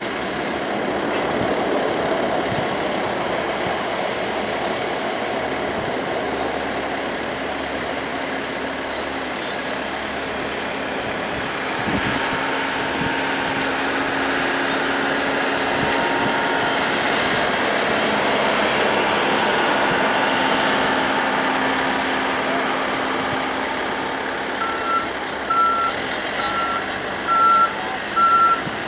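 Jet engines of a Boeing 767-200F freighter running at taxi power, a steady rush with a faint whine. Near the end a short high beep repeats about twice a second over the engine noise.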